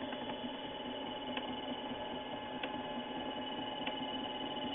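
Mini-lathe running steadily while turning a Teflon rod, a continuous hum with a faint tick about every second and a quarter.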